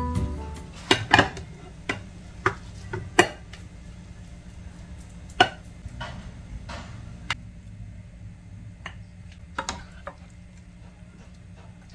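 Kitchen utensils knocking and scraping on cookware while a meal is served: rice scooped from a rice cooker onto a ceramic plate, then a spatula lifting seafood and greens from a ceramic-coated pan onto the plate. Scattered sharp clicks and knocks, a few a second at most, the loudest in the first few seconds.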